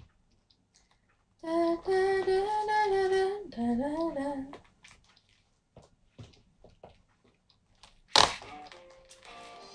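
A short sung melodic phrase lasting about three seconds, starting a little over a second in. Then a single sharp knock about eight seconds in, and faint music begins near the end.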